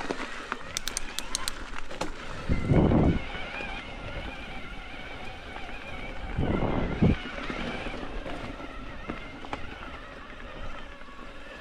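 Mountain bike riding along a dirt trail: continuous tyre and trail noise, with two louder low rumbles about three and seven seconds in and a few sharp clicks near the start.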